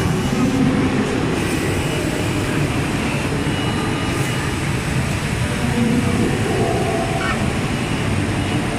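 QJH 460Y automatic wine-box making machine running: a steady, loud mechanical din from its sheet feeder, conveyors and robot arm.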